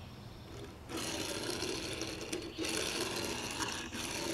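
Hot Wheels Time Attaxi die-cast toy car rolling across a hard tabletop under a hand's push, a steady rolling whirr from its wheels that starts about a second in and breaks off briefly midway. The wheels roll freely.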